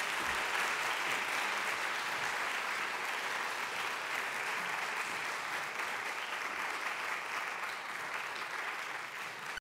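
Audience applauding, a steady even clapping that eases off slightly near the end.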